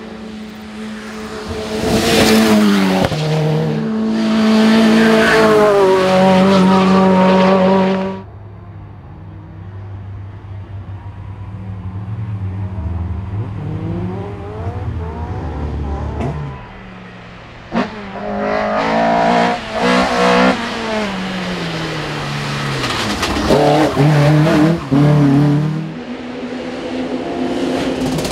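Race car engines at full throttle in a run of cut-together passes: the engine note climbs in pitch, then drops at each gear change and lift. The sound changes abruptly about eight seconds in and again near the end, where one car's clip gives way to another's.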